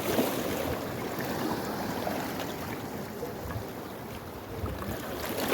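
Sea waves washing onto the beach: a steady rush of surf.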